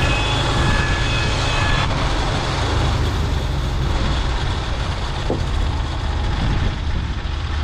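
Norwood LumberPro HD36V2 portable bandsaw mill running steadily: a deep engine note under a broad noisy haze. Thin high whining tones stop about two seconds in.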